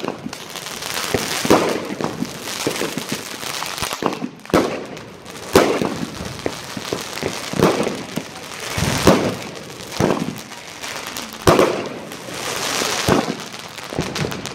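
Aerial fireworks going off in quick succession: a sharp bang every second or two, with crackling from the bursting stars in between.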